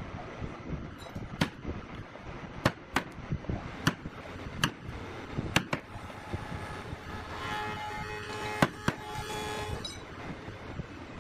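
Wooden mallet striking the handle of a steel chisel as it chops a mortise into a wooden plank: sharp single knocks at uneven gaps, roughly one a second, some in quick pairs. In the second half an unidentified steady humming tone sounds for about two and a half seconds.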